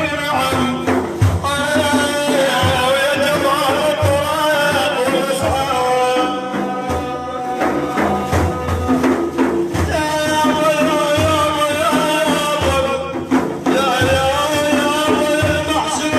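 Arabic devotional praise song (madih): a voice sings a long, ornamented melodic line over a steady beat of hand drums.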